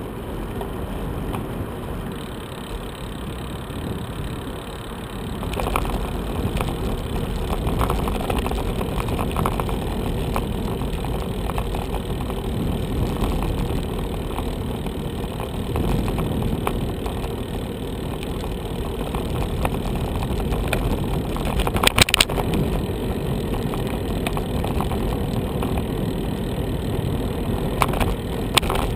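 Moving bicycle on a city street: steady rumble of wind on the microphone and tyres on tarmac, with passing car traffic. A sharp knock about 22 seconds in, and a couple of smaller clicks near the end.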